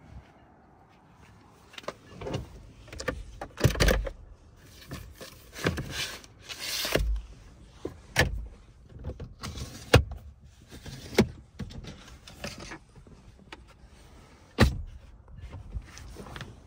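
A 2009 Honda Civic sedan being handled: a string of clicks and knocks with short rushing noises between them, typical of doors, windows and controls being worked. The sharpest knocks come about four, ten and fifteen seconds in.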